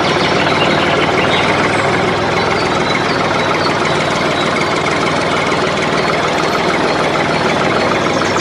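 Small engine running steadily at idle with a fast, even knocking beat.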